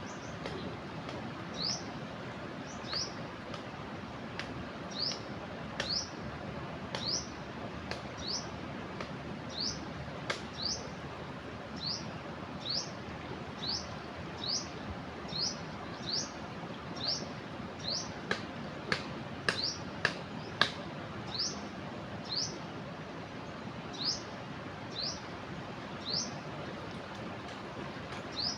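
A bird repeating a short, rising chirp about once a second over the steady rush of the flooding river. A few sharp clicks come about two-thirds of the way through.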